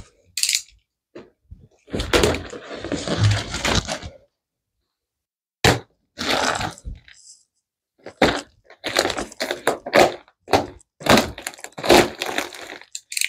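Clear plastic wrap crinkling and tearing as it is cut open with a utility knife and pulled off a steel bed frame, in irregular crackling bursts with a few sharp cracks.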